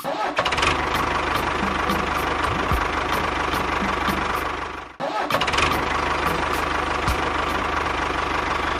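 Tractor engine running steadily with a fast, even pulse. It cuts off abruptly about five seconds in and resumes at once.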